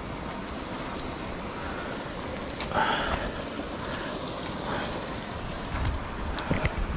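Steady outdoor rush of wind and water noise, with a brief louder sound about three seconds in and a few short knocks near the end.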